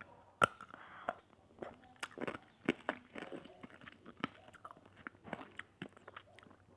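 Close-up mouth sounds of biting and chewing a hard-candy lollipop: irregular crunches, wet clicks and smacks, several a second.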